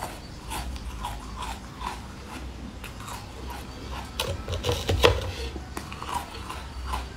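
Close-up biting and crunching of a guitar-shaped block of coloured ice, with small chewing crackles between bites; the loudest crunches come just after four seconds and again about five seconds in.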